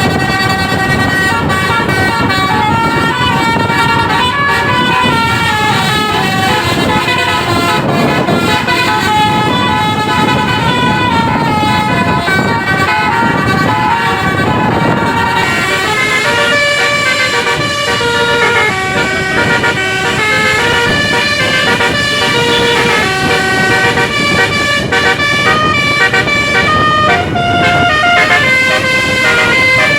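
Bus 'basuri' telolet multi-tone horn playing a tune: a continuous run of held notes stepping up and down, over the bus engine running. The notes stand out more clearly in the second half.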